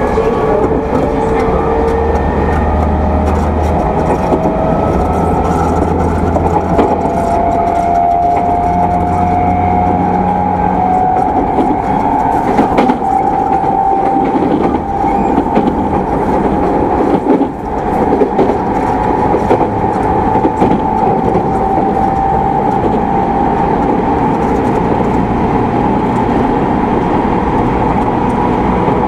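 Onboard running sound of a refurbished E217 series electric train, heard inside a motor car: the traction motor whine rises in pitch over roughly the first ten seconds as the train gathers speed, then holds steady, over the rumble of wheels on rail.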